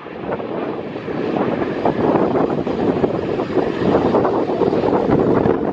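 Jet airliner engines on approach, a steady rushing noise that grows louder over the first two seconds and then holds, with wind buffeting the microphone.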